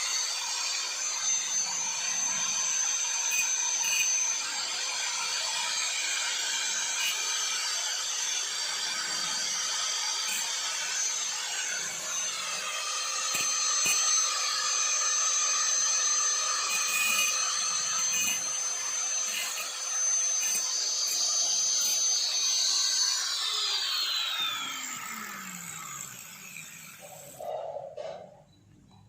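A small electric power tool running steadily under load with a rough cutting or grinding noise. It is switched off about 23 seconds in, and its whine falls away as the motor spins down.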